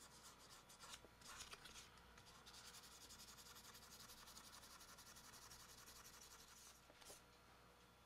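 Faint, quick repeated rubbing of fine-grit sandpaper worked by hand over a small metal trigger to take off deep tarnish, stopping near the end.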